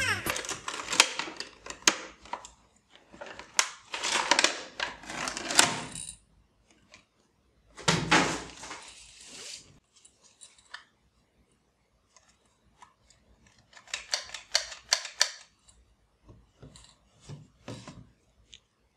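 Thin plastic packaging crinkling and rustling as a toy bubble gun is unpacked, in three bouts, with scattered clicks and knocks of hard plastic parts and bottles being handled in between.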